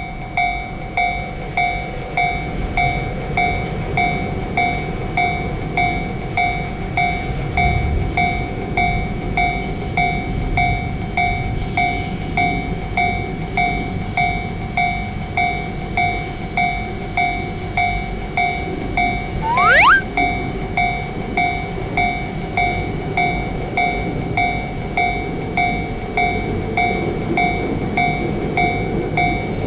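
Japanese railway crossing warning bell dinging steadily at about three strikes every two seconds, over the continuous rumble of a passing train. About two-thirds of the way in comes a brief, quickly rising whistle-like sweep.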